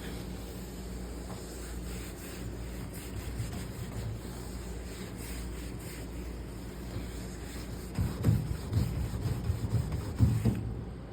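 Rubbing and wiping on the top of a microwave, cleaning off dust and sticky sap spots, with louder rubbing and bumps in the last few seconds.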